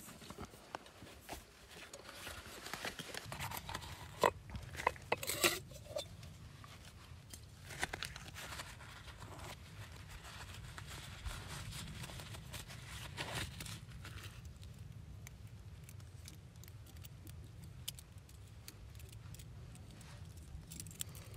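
Clicks, rustles and small clinks of a backpacking cook kit being unpacked by hand: a plastic cap pulled off a nested pot, a stove pouch opened and a small folding gas stove's metal arms unfolded. The sharpest clicks come in the first six seconds and the handling is sparser after that, over a low steady wind rumble.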